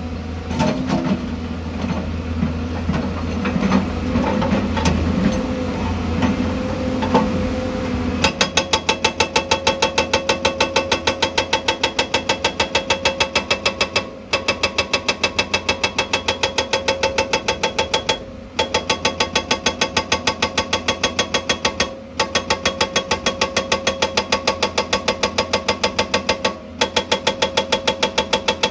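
Excavator engine running with scattered knocks and clanks. About eight seconds in, a hydraulic breaker hammer starts pounding in a fast, even rhythm with a metallic ring. It pauses briefly every few seconds.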